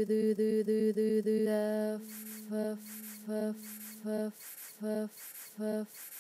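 Electronic droning tones: a low tone and a higher tone held together and fluttering rapidly, then the higher tone drops out about a second and a half in, leaving the low drone under short beeps that repeat a little more than once a second.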